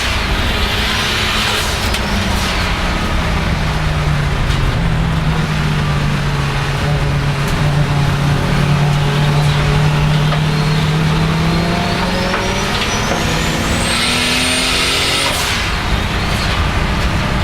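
Turbocharged BMW M30 straight-six under hard use on track. The turbo whistle climbs in pitch as the engine pulls harder in the last few seconds, and the blow-off valve hisses a moment after the start and again near the end as the throttle lifts.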